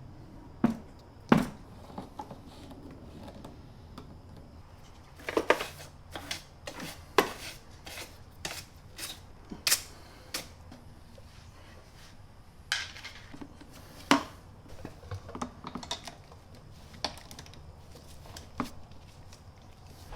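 Irregular clicks, clinks and knocks of hand tools and parts being handled while working on a Honda EU2000i inverter generator, which is not running.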